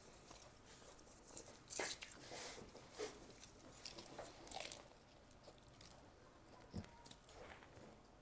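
Quiet eating of homemade shawarma wraps: bites and chewing with brief crunches, the loudest about two seconds in, and rustling of the paper wrappers being handled.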